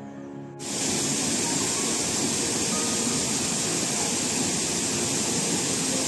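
Steady rush of fast-flowing water, as at a cascade, cutting in suddenly about half a second in.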